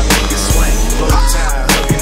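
Hip-hop music track with heavy bass and a steady beat.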